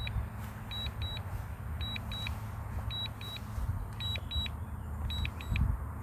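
DJI Mavic Air 2 remote controller beeping in short high pairs about once a second, the alert it sounds while the drone is flying Return-to-Home. A steady low rumble runs underneath.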